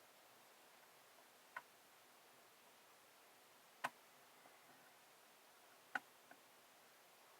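Near silence broken by three sharp clicks a couple of seconds apart, the last the loudest, from handling the plastic parts of an Xbox 360 controller.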